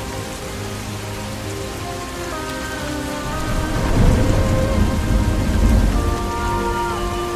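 Steady rain, with a low roll of thunder swelling about halfway through and fading near the end, over soft sustained background music notes.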